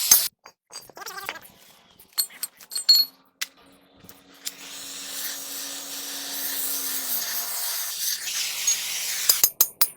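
A few light clicks and knocks, then a steady rubbing noise from about four and a half seconds in that stops shortly before the end, like a tool worked against a part.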